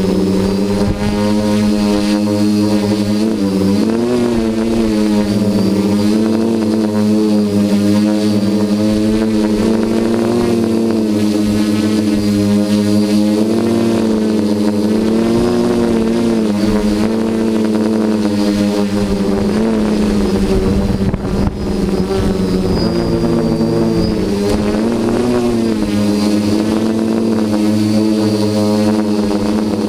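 Hoverthings HT-FPV quadcopter's electric motors and propellers whining in flight, the pitch rising and falling as the throttle changes. The level dips briefly about two-thirds of the way through.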